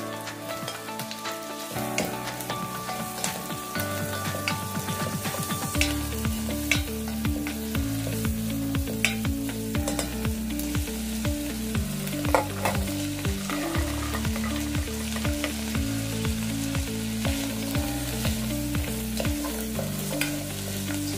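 Onions and shredded chicken sizzling as they fry in a pot, with a plastic spatula stirring and scraping, giving frequent sharp clicks against the pot. Background music with a steady low bass line plays over it from about two seconds in.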